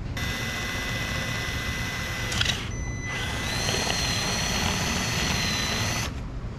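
Electric drill running with a steady high whine as its bit bores through a plastic dash bezel, in two runs with a short stop about two and a half seconds in; the second run cuts off about a second before the end.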